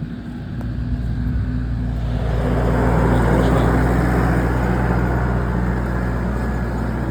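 A vehicle engine runs at a steady pitch. From about two seconds in, a rushing noise of tyres and wind builds up as the vehicle gets moving.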